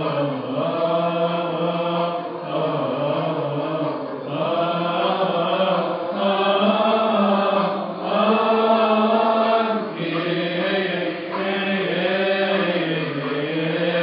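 Coptic Orthodox liturgical hymn chanted in unison by many voices, with long, drawn-out notes that slide slowly up and down.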